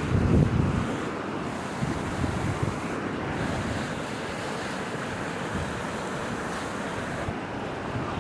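Steady rushing of a river in flood, with wind buffeting the microphone for about the first second.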